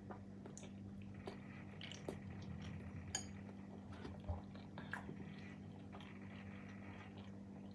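A fork clinking and scraping against a plate of pasta, with soft chewing between a few small clicks, over a faint steady hum.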